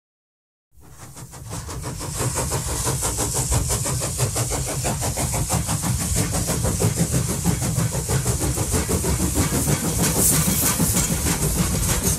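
A model railway train running along layout track: a steady rumble of motor and wheels with a rapid, even clatter. It fades in just after a moment of silence at the start.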